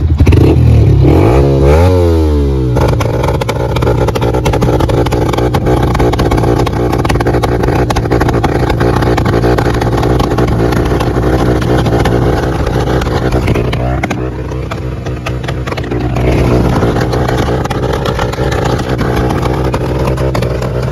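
Yamaha R15 M's 155 cc single-cylinder engine revved hard through an aftermarket slip-on exhaust, with sharp pops and crackles of backfire: flame shoots from the silencer tip. Quick blips up and down open the stretch, then the revs are held high, dip for a couple of seconds past the middle, and rise again.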